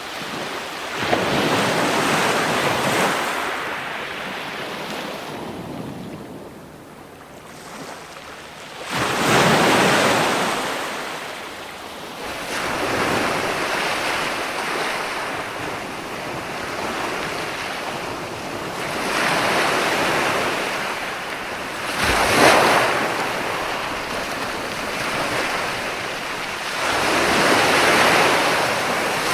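Ocean waves breaking and washing on the shore, swelling and ebbing every few seconds, with a lull a few seconds in and the sharpest break about three-quarters of the way through.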